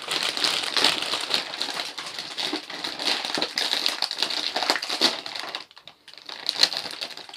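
Plastic snack packets crinkling and rustling as they are handled and opened, with crunchy crisps being chewed. The crackling breaks off briefly near the end.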